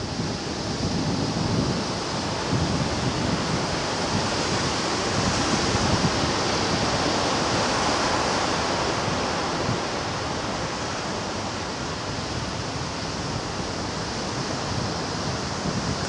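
Sea waves washing in as a steady surf, swelling a little about halfway through, with wind buffeting the microphone in low gusts.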